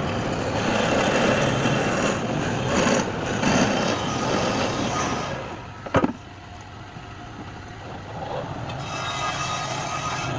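Wood lathe running with a tool cutting the spinning wood. The cutting noise eases off about halfway through, there is a sharp click about six seconds in, and it gets louder again near the end.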